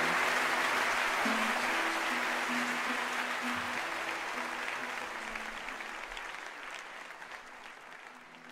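Audience applause dying away steadily, with a few low held instrumental notes changing pitch beneath it.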